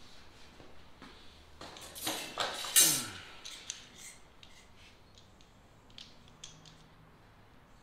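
Metal kennel panels and rods clanking and scraping as they are handled, loudest about two to three seconds in with a scrape that slides down in pitch, followed by scattered light clicks and taps.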